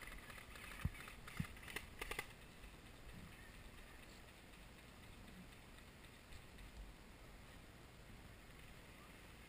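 Handling noise from a player moving with a head-mounted camera: two soft thumps, then a brief cluster of clicks and crunches about two seconds in, then faint outdoor background.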